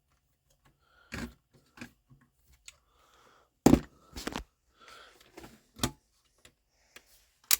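Scattered sharp clicks and knocks with some scraping, from a screwdriver and the DVR's metal and plastic parts as a screw is backed out and the hard drive is worked loose. The loudest knock comes a little past the middle.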